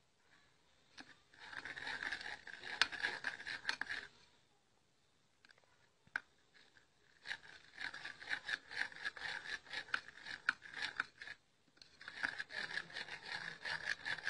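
A thick paste of gram flour, turmeric and milk being stirred in a bowl with a spoon: quick scraping strokes in three spells with short pauses between.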